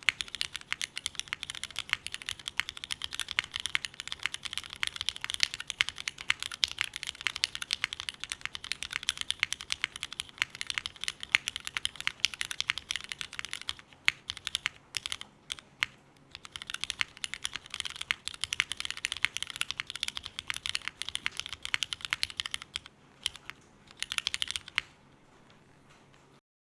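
Snake60 r2 mechanical keyboard with Cherry MX2A Black linear switches being typed on rapidly, a dense run of keystrokes. About halfway the typing thins to a few scattered strokes, then resumes and stops shortly before the end.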